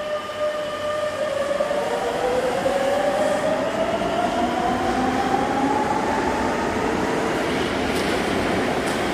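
Madrid Metro electric train pulling out of the station: the traction motors' whine rises steadily in pitch as it gathers speed, over a growing rumble of wheels on rail. Two sharp clicks near the end.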